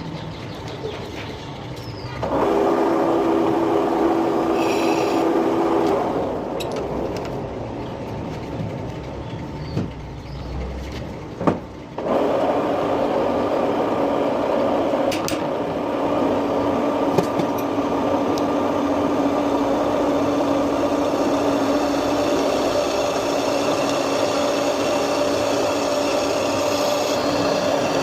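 Metal-turning lathe running with a steady mechanical hum. It starts about two seconds in and winds down after a few seconds, a couple of sharp clicks follow, and it starts again about halfway through and keeps running.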